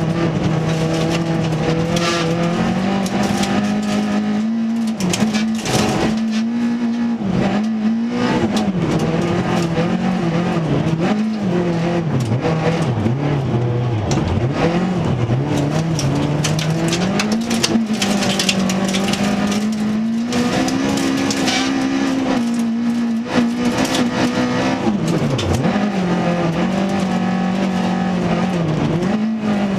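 Toyota Corolla FX-GT rally car's engine at full effort, heard from inside the cockpit, its note rising through the revs and dropping sharply at each gear change and braking as the car slows for a corner and accelerates out again. Under it a hiss of tyres on the loose snowy gravel, with sharp clicks of gravel striking the car.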